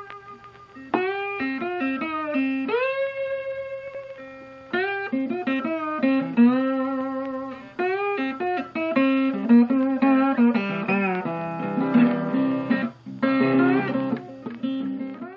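Intro music: a solo guitar playing a bluesy melody of plucked notes, some of them bent.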